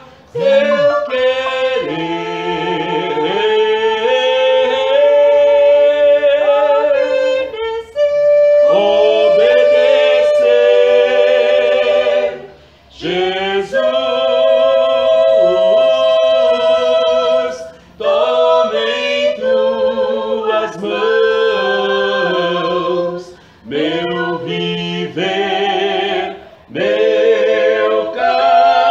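Two women's voices and a man's singing a gospel hymn together a cappella in harmony, in phrases with short breaths between them.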